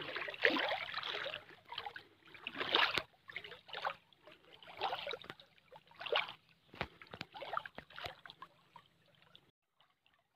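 Pond water splashing and sloshing in irregular bursts as people wade waist-deep and work a fishing net, with a few sharp splashes. It stops suddenly about a second before the end.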